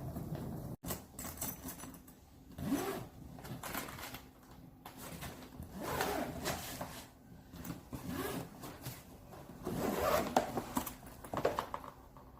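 Suitcase zipper being pulled along in a series of separate strokes, each lasting up to about a second.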